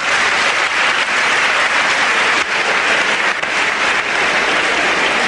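Theatre audience applauding, a dense and steady clapping.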